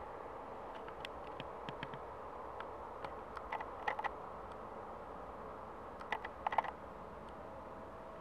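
Irregular light clicks and ticks from handling the camera and tripod while panning, in two clusters, one in the first half and a shorter one about six seconds in, over a steady faint hiss.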